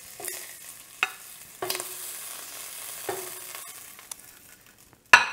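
Shrimp sizzling in a hot stainless-steel pan while metal tongs lift them out, the tongs clinking against the pan four times with a short ring each time. The sizzle fades near the end, and a louder knock comes just before the end.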